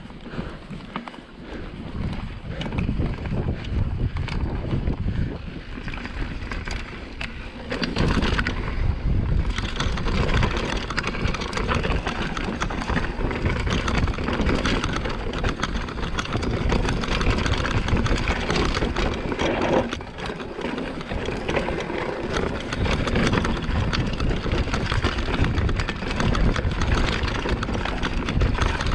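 Mountain bike descending a rocky downhill trail, its tyres and frame rattling and crunching over loose rock, with wind buffeting the microphone. The noise grows louder about eight seconds in and stays loud.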